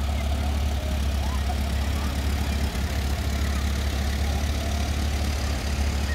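Engines of several old farm tractors running slowly as they drive past in a line, a steady low drone.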